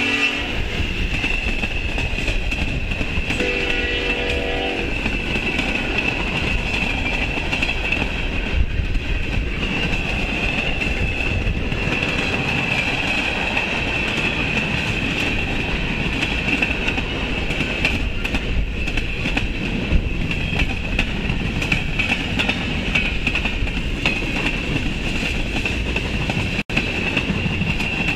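Freight train cars rolling past on the rails: steady wheel-and-rail running noise with clickety-clack and a constant high ring over it. A short horn sound comes about four seconds in.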